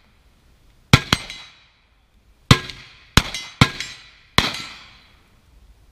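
Six carbine shots in pairs and singles over about three and a half seconds, each a sharp crack with an echoing tail.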